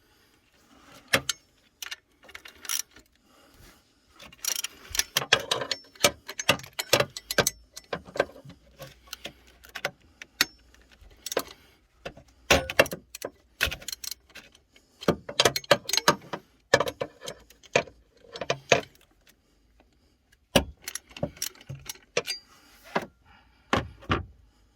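Metal hand tools and parts clinking and clicking during work on an engine: irregular metallic clicks and knocks, some in quick runs, with short pauses between.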